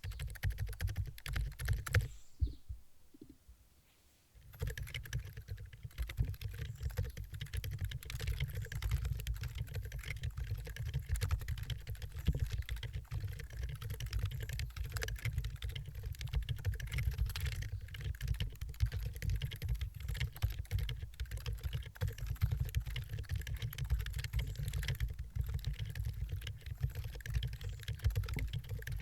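Typing on a Keyboardio Atreus keyboard with Durock Silent Linear Dolphin 62g switches and DROP MT3 keycaps: a fast, steady run of keystrokes, with a pause of about two seconds starting about two seconds in before the typing resumes.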